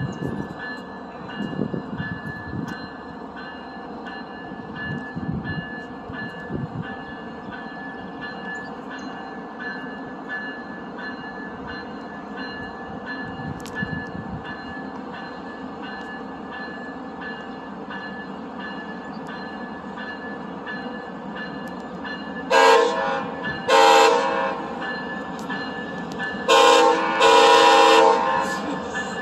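Via Rail passenger train running past, with a bell ringing steadily about twice a second. Near the end the locomotive's air horn sounds two short blasts and then a long one.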